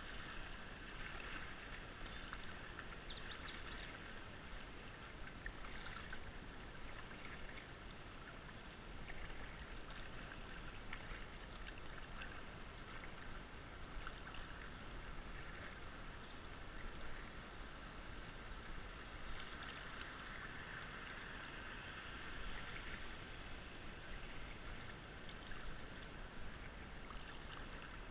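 Fast creek water running and lapping against a plastic kayak's hull, with the soft dips and splashes of a double-bladed paddle. A few faint high chirps come through about two seconds in and again about halfway.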